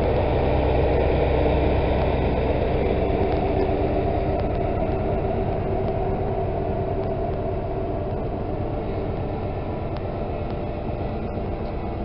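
Diesel engine of a High Speed Train's Class 43 power car running as the train pulls out past the platform. A steady low engine drone with rumble fades gradually as the train moves away.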